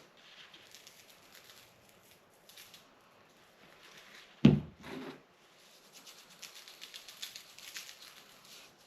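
Seasoning shaken from a shaker onto raw fish fillets, a faint quick pattering, with a short thump about four and a half seconds in.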